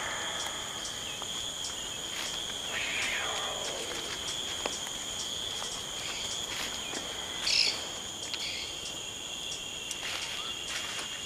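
Swamp ambience of insects trilling steadily at a high pitch. A short, sharp bird call stands out about seven and a half seconds in, and a descending sweep comes near three seconds.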